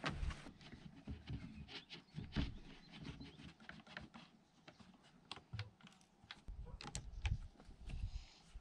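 One-handed quick-release bar clamps being worked on glued tongue-and-groove boards: a run of irregular small clicks and clacks as the trigger handles are squeezed and the clamps are set in place.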